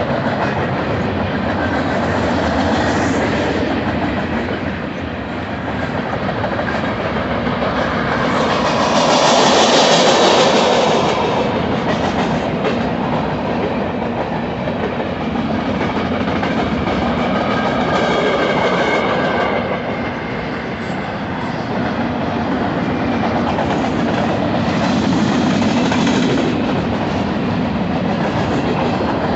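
Freight cars of a Union Pacific freight train rolling past, their steel wheels clacking over rail joints in a continuous rumble. The rumble swells louder about a third of the way through.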